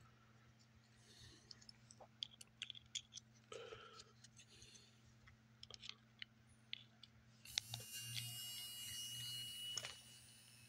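Faint clicks and taps of wires and a small pickup disc being handled, over a steady low electrical hum. About seven and a half seconds in, a sudden hiss with a steady high whine comes through the homemade amplifier for about two seconds, then drops away.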